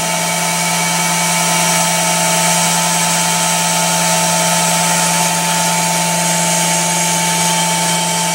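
CNC lathe running while turning a workpiece: a steady machine hum with higher steady whines over a wash of noise, unchanging throughout.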